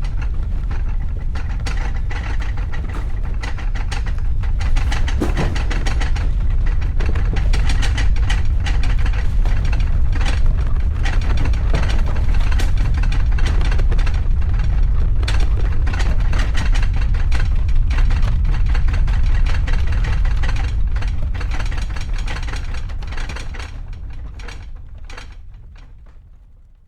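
Earthquake heard inside a house: a loud, deep rumble with furniture and household objects shaking and rattling, swelling a few seconds in, holding, then dying away near the end.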